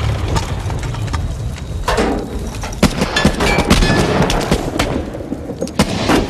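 Battle gunfire: a low rumble, then from about three seconds in a rapid, irregular string of rifle shots from several guns at once.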